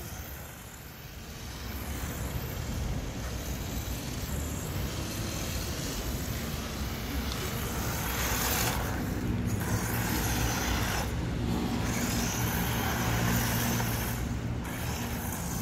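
A 1:12 scale four-wheel-drive electric RC buggy driving over paving stones: a continuous running noise from its motor and tyres that surges louder several times in the second half, over a low steady hum.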